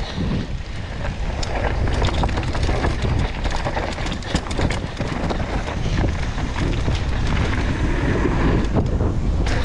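Mountain bike riding down a dirt trail, with tyre noise and frequent short rattles and clicks from the bike, under a steady low rumble of wind on the microphone.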